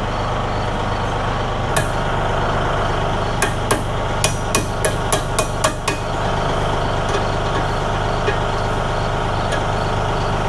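Massey Ferguson tractor engine idling steadily, with a quick string of about eight sharp knocks or clanks between two and six seconds in.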